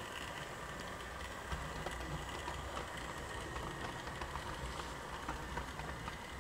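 Model railway train, a Great Western tank locomotive pulling coaches, running along the track: a steady low rumble and motor hum with scattered light clicks from the wheels on the rails.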